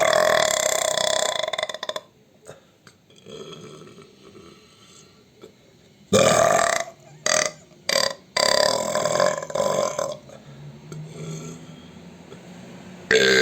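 A series of loud, long human burps. One runs for about two seconds at the start, a group of burps comes about six to ten seconds in, and another begins near the end.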